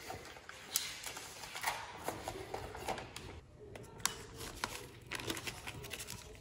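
Scattered light clicks and taps of metal parts being handled as a main bearing shell is pressed into its saddle in a Honda D16 engine block.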